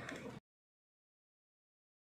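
Near silence: faint background noise cuts off abruptly less than half a second in, leaving complete silence.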